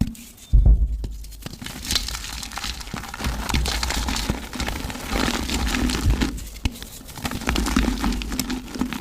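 Mud being crushed and crumbled, a dense run of crackling, crunching clicks that begins with a heavy thud about half a second in.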